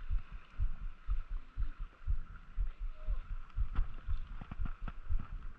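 Small waves lapping and slapping against a camera sitting at the sea's surface: irregular low thumps, about three or four a second, over a faint steady high hum.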